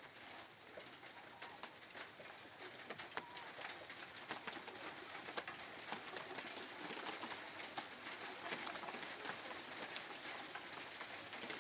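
Rain falling steadily, a constant hiss sprinkled with the sharp ticks of individual drops striking nearby.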